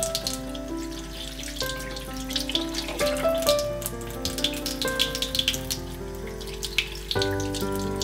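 Kitchen faucet running in a steady stream, splashing as eggs are rinsed under it by hand. Background music with held notes plays along and grows fuller about seven seconds in.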